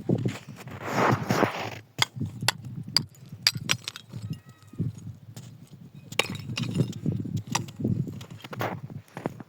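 Irregular knocks and clatter, with a short burst of rustling noise about a second in.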